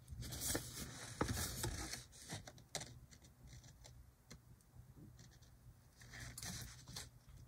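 Faint rustling and crinkling of an old folded paper leaflet being handled and shifted in the fingers, in short spells through the first few seconds and again near the end.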